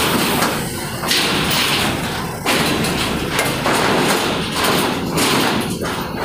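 Loaded trucks' tyres rolling over a ferry's steel loading ramp and deck grating, giving a series of loud thumps and clanks about every second or so as each axle crosses, over the low rumble of diesel truck engines.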